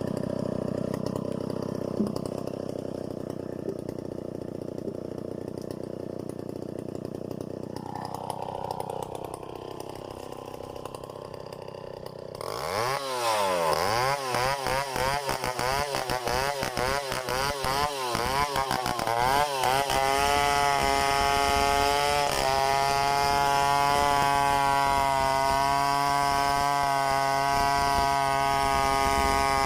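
Stihl 070 two-stroke chainsaw idling for the first dozen seconds, then throttled up. Its engine speed swings rapidly up and down for several seconds, then holds a steady high pitch under full throttle while milling mahogany freehand.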